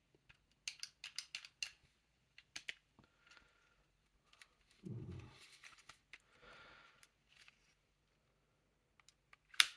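Wooden puzzle box being handled: a run of small sharp clicks and taps as its pieces are slid and pressed, a soft scraping in the middle, and one louder click near the end.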